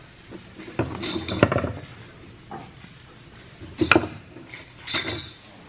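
Hand carving tools and the wooden stock being handled: a few separate sharp knocks and clinks of steel on wood, in a cluster about a second in, then once near four seconds and again about five seconds in.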